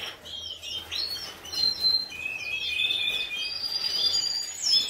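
Red-factor canaries in a room of breeding cages chirping and singing together: overlapping high trills and quick chirps, with a run of short downward-sweeping calls near the end.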